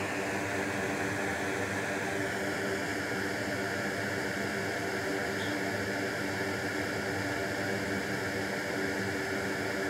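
Steady hiss of air blown over a hot circuit board to cool it quickly, heard over a faint steady hum.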